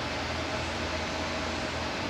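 Steady whooshing hiss with a low hum, as from a running fan or other background machinery.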